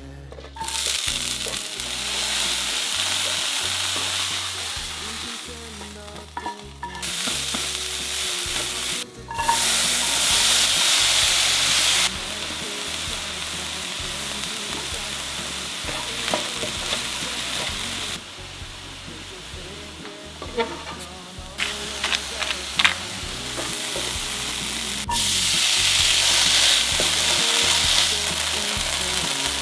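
Diced bell peppers, then corn kernels, sizzling in a frying pan as they are stirred with a wooden spatula. The sizzle comes in several stretches that change level abruptly, with a few sharp taps and scrapes of the spatula in the middle.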